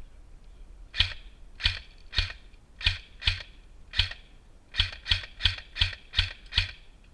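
Airsoft gun firing single shots, about a dozen sharp cracks at an uneven pace, coming quicker in the second half.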